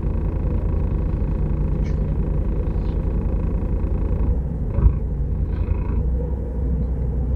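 Semi-truck's diesel engine idling with a steady low rumble, with a single brief knock just before the fifth second.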